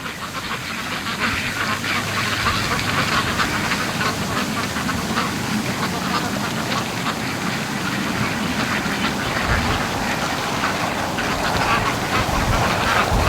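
A flock of white Pekin ducks quacking continuously, growing louder over the first couple of seconds as they hurry home, with strong wind gusting on the microphone near the end.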